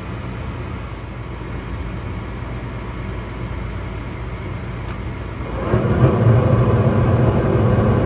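Gas furnace running with a steady motor hum while its hot surface igniter glows. There is a sharp click about five seconds in. Soon after, the burners light and the sound steps up into a louder, steady rush of gas flame.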